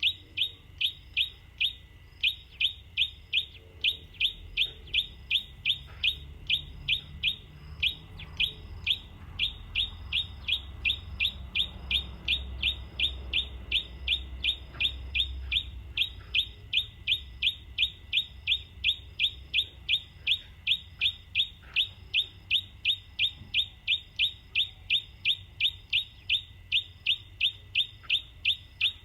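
A single bird repeating one short, sharp chirp very evenly, about two and a half to three times a second, without a break.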